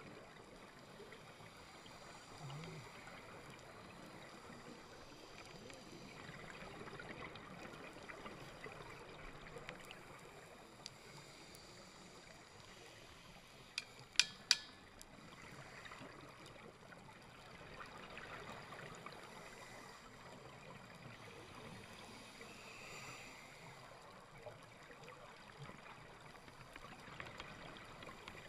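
Scuba dive heard underwater: a faint, steady water hiss with the bubbling of regulator exhalations swelling every few seconds, and three sharp clicks about halfway through.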